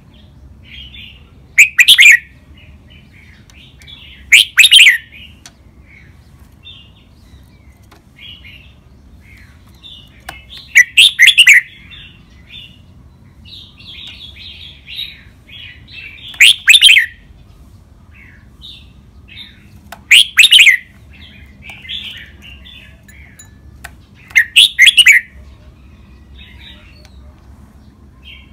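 Red-whiskered bulbul singing: six loud, short song phrases a few seconds apart, with softer chattering notes between them.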